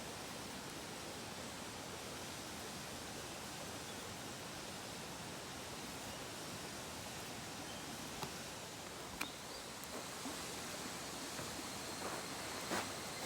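Steady rushing of a mountain stream, an even hiss of flowing water, with a few light clicks and knocks in the second half.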